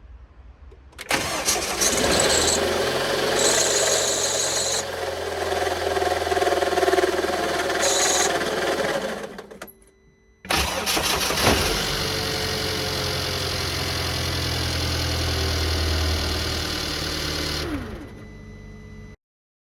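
Mercedes-Benz E250's M274 turbocharged four-cylinder engine running with an abnormal noise, caused by the alternator's failed one-way clutch, which has also damaged the alternator itself. The engine sound breaks off about ten seconds in and comes back abruptly half a second later.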